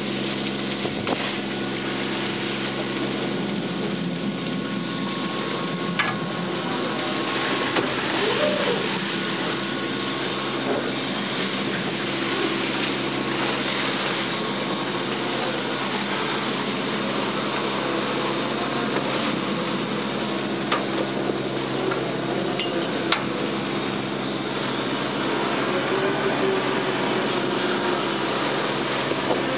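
Fishing boat's engine running steadily under a constant wash of water noise from the churning wake, with a few sharp clicks of gear.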